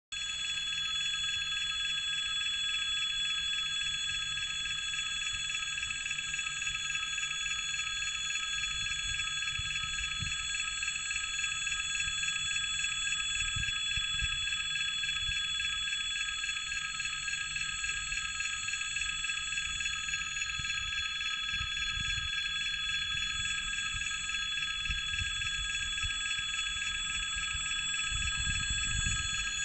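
Electric warning bell of a railway level crossing ringing continuously and steadily, the signal that a train is approaching. A low rumble comes and goes beneath it.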